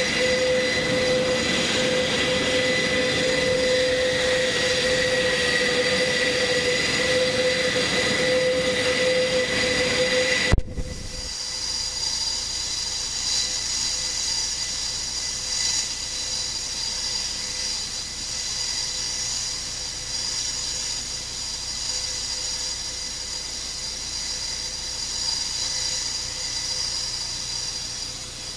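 Airbus A400M Atlas's four TP400 turboprop engines running with the aircraft parked, a loud, steady whine with several held tones. About ten seconds in, after a brief click, the sound drops abruptly to a quieter, thinner whine.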